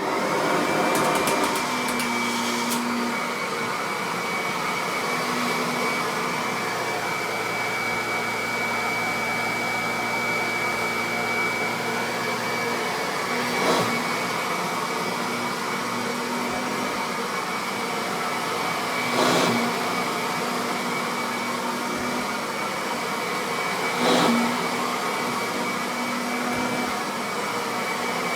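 Kirby Avalir upright vacuum cleaner switching on and running steadily with a high whine, with a brief knock about every five seconds during the second half.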